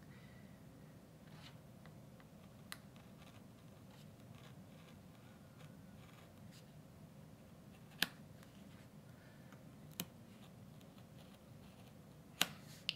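Faint scratching of an X-Acto-style hobby knife cutting along feather outlines in a basswood wing blank, with a few sharp ticks from the blade, the loudest about eight seconds in.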